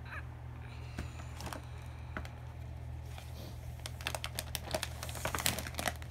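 Paper gift bag rustling and crinkling as a hand rummages inside it: a few scattered crackles at first, then a dense run of quick crackles from about halfway through.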